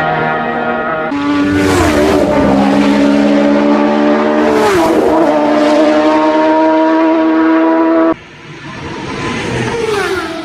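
Racing motorcycles passing at high speed, loud engine howl with the pitch dropping sharply as each bike goes by, about three passes. The sound changes abruptly about a second in and again near the end, where the footage is cut.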